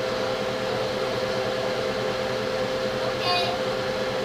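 A steady electrical or mechanical hum with a constant mid-pitched tone, like an appliance motor running, with a brief high voice-like sound about three seconds in.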